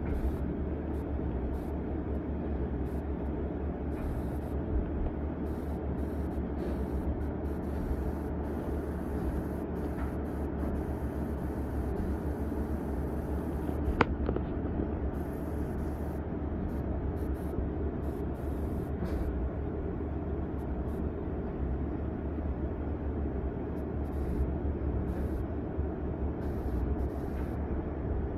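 Cat 306 mini excavator's diesel engine running steadily, with one sharp click about halfway through.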